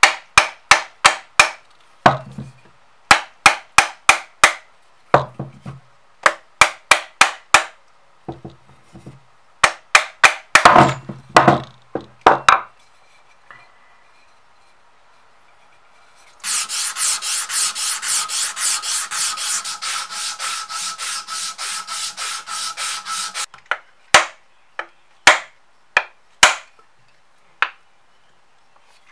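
Bursts of quick, sharp hammer taps, several a second, driving a club hammer's head onto a new wooden handle. About halfway through comes a stretch of fast back-and-forth scraping on the wood, about six strokes a second, and a few scattered taps follow near the end.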